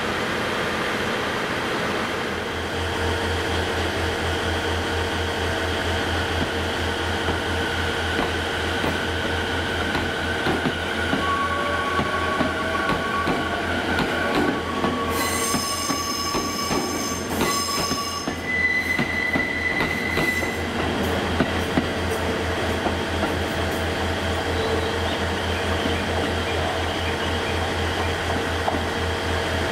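A train at a station: a steady low hum with high squealing tones that come and go, most of them in the middle, as of wheels squealing on rail.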